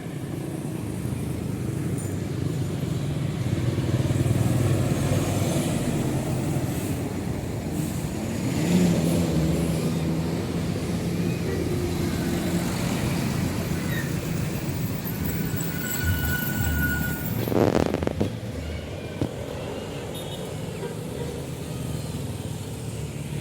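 Roadside traffic: engines and tyres of passing vehicles, with one vehicle passing close about eighteen seconds in.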